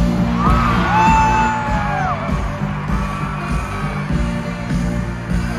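Live pop concert music over a stadium sound system, with a steady low beat. A voice holds a long high note for nearly two seconds near the start, then drops away.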